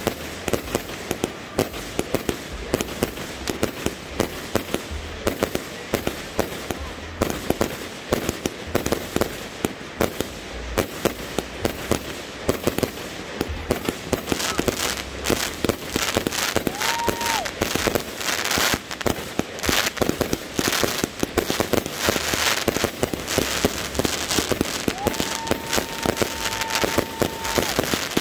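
A 260-shot firework cake firing in rapid succession, a fast string of bangs and pops from shots bursting overhead. In the second half the bursts take on a dense, bright crackle.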